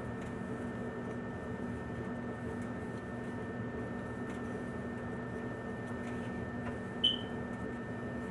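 Torch flame burning steadily as it heats a copper pipe fitting for soldering, a constant rushing hiss with a low hum; a brief high chirp sounds about seven seconds in.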